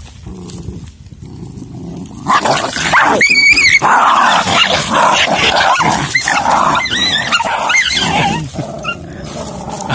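Dogs fighting: a loud scuffle of snarling and growling that breaks out about two seconds in, with high yelps, and dies down near the end.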